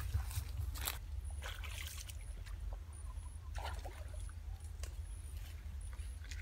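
Intermittent rustling of grass and leaves with a few brief handling noises, over a steady low rumble; faint, short high-pitched chirps repeat in the background.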